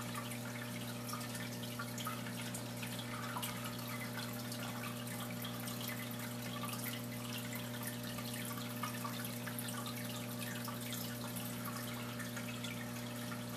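Air bubbles from an aquarium volcano ornament streaming and breaking at the water surface: a continuous patter of small pops and drips. A steady low hum runs underneath.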